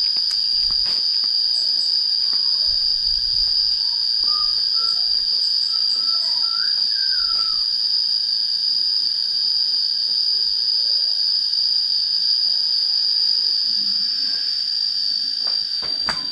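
Steady, unbroken high-pitched insect drone, with a few faint rising chirps a few seconds in.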